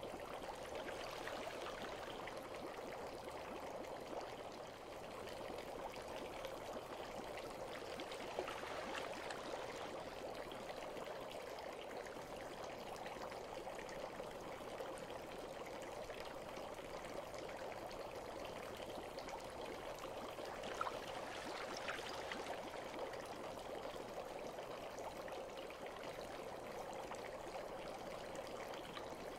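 Water running and trickling steadily, with a couple of faint sharp drips partway through.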